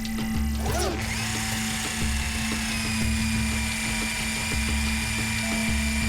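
Cartoon soundtrack: background music with a low pulsing beat, and after a short swoosh about a second in, a steady high-pitched mechanical whine.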